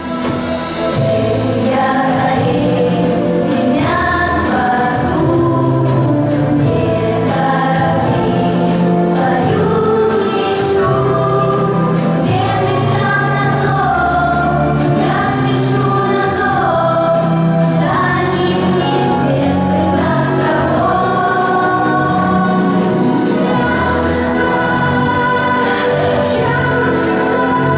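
Music: a song with a group of voices singing a melody over instrumental backing.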